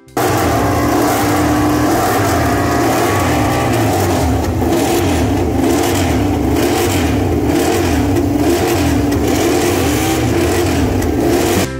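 Racing motorcycle engines running at high revs around the circuit, a steady loud drone whose pitch wavers up and down as the bikes accelerate. It starts and cuts off abruptly.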